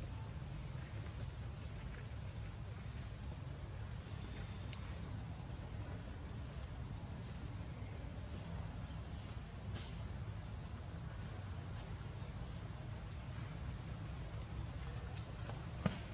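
Insects chirring in a steady high-pitched drone of two even tones, over a low rumble, with a sharp click near the end.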